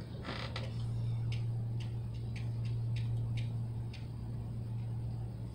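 Short, sharp clicks of a handheld presentation remote's button, about seven presses at uneven intervals, as slides are paged through. A steady low hum runs underneath.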